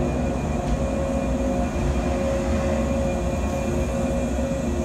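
JR East 485-series electric train cars rolling slowly past along a station platform: a steady low rumble with several held humming tones from the running gear and equipment.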